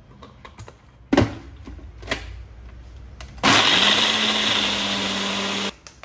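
Two sharp knocks, then a Ninja personal blender's motor spins up quickly and runs steadily for about two seconds, blending a milk-and-protein-powder shake, before cutting off abruptly.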